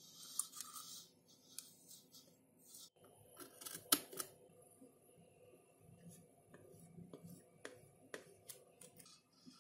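Clothes iron sliding over packing tape on a foam tail piece, with soft rubbing and scattered clicks and taps from handling. The loudest is a sharp click about four seconds in.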